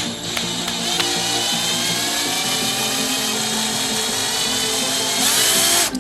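Handheld power drill-driver running, its motor whine sliding in pitch under load as it drives screws. It runs louder for the last second, then stops suddenly.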